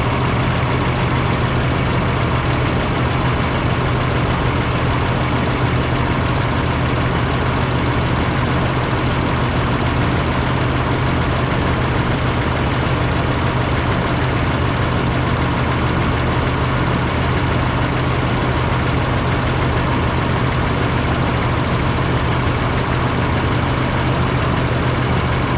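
Ram 3500 pickup's engine idling steadily.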